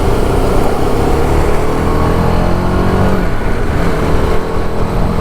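Single-cylinder engine of a TVS Apache RR 310 motorcycle running while riding. Its pitch climbs, then dips briefly about three and a half seconds in.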